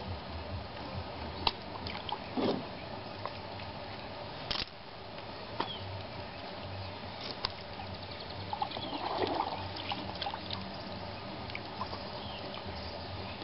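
Lake water splashing and dribbling as hands rinse freshly caught fish in the shallows, with a few light splashes and one sharp tap about four and a half seconds in.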